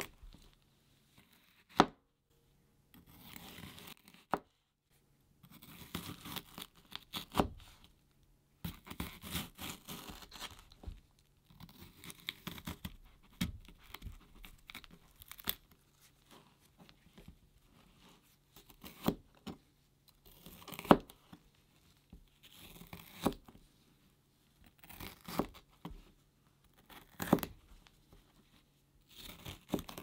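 A knife slicing through a raw yellow bell pepper on a cutting board. Crisp crunching comes in short bursts with brief pauses between cuts. Several cuts end in a sharp knock of the blade against the board.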